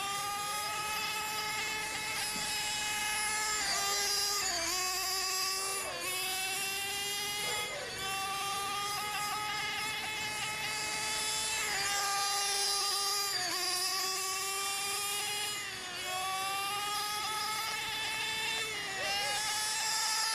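Nitro .18 engine of a 1/4-scale radio-control ARX 540 motorcycle running at high revs: a high-pitched whine that climbs slowly in pitch and then dips sharply every few seconds as the revs change.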